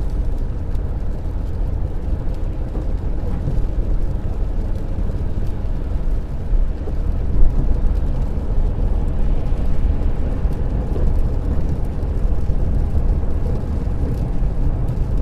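Steady road noise inside a car's cabin at dual-carriageway speed on a wet road: a low rumble of tyres and engine. There is one brief louder bump about halfway through.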